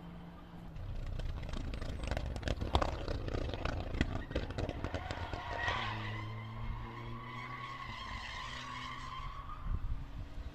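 Race car running hard as it approaches along the course, its engine crackling sharply at first, then joined about halfway by a steady high tyre squeal that fades near the end.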